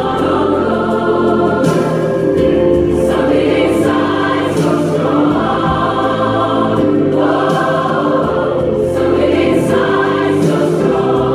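Large choir of mostly women's voices singing in harmony, with long held notes, amplified through stage microphones.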